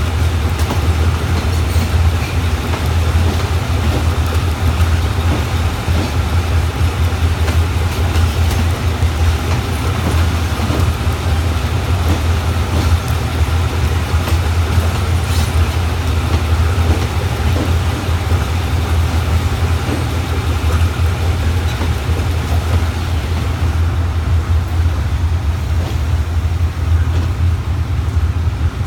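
Eastern & Oriental Express train at the platform: a steady, deep engine hum with rolling noise over it, no clear wheel clacks.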